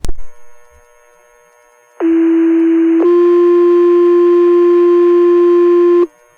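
Fire department radio paging tones: a click as the channel opens, then a two-tone sequential page, one steady tone for about a second followed by a slightly higher tone held about three seconds, which alerts the volunteer firefighters' pagers to a call.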